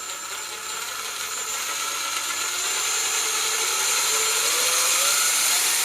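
A Ryobi 18-volt ONE+ cordless power tool's motor running: a steady, high whine that slowly rises in pitch and grows louder.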